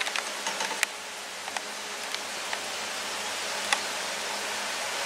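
Electric fans running: a steady whirring hiss with a faint low hum, and a few light clicks.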